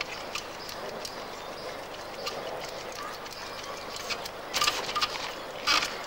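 Mountain bike on boulders: short, sharp clattering and scraping of tyres and frame against the rock, a cluster about four and a half seconds in and another near the end, over a steady hiss.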